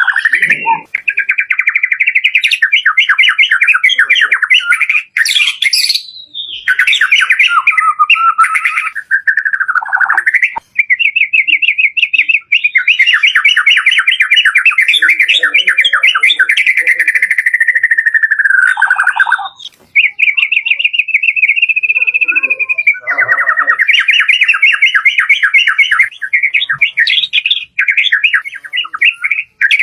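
White-rumped shama (murai batu) singing loudly and continuously: fast trilling phrases of rapidly repeated notes that rise and fall in pitch, broken only by a few short pauses.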